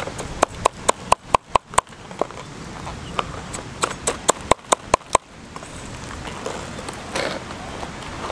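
Cleaver chopping red chillies on a round wooden chopping board: sharp knocks of the blade on the wood, about four a second for the first two seconds, then a looser run of strokes that stops about five seconds in.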